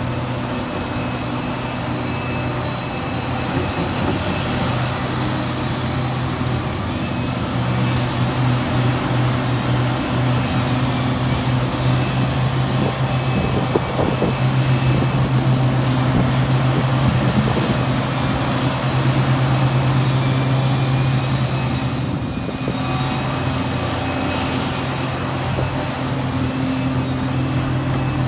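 Liebherr R 976 crawler excavator's diesel engine and hydraulics working steadily as it digs and loads a dump truck, with a thin high whine over the engine note. The engine gets louder through the middle of the stretch, then eases back.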